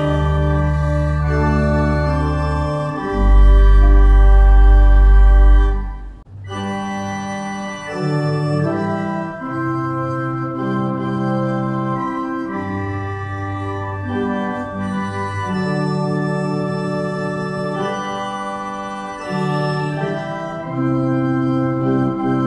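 Organ music of slow, sustained chords. A deep held bass note comes in loud about three seconds in, and the music breaks off briefly at about six seconds before the chords continue.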